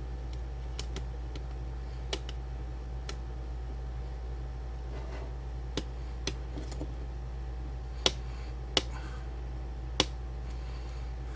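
Small screwdriver driving PCB mounting screws into a plastic radio case, with scattered light clicks and taps of metal on plastic and three sharper clicks near the end, over a steady low hum.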